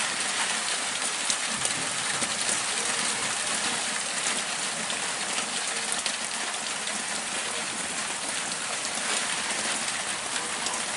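Heavy rain falling steadily, a dense hiss of drops with many small patters on nearby surfaces.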